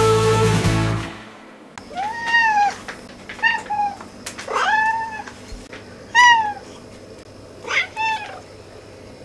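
Domestic cat meowing about six times, each meow a short arched call, some longer and some clipped. Background music fades out in the first second, before the meows begin.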